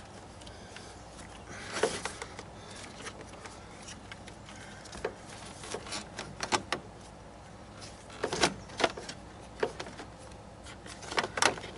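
Plastic radiator cooling-fan and shroud assembly being worked into a car's engine bay by hand: scattered clicks, knocks and scrapes as it bumps against the radiator and hoses, with the loudest knocks in clusters a little past eight seconds in and near the end.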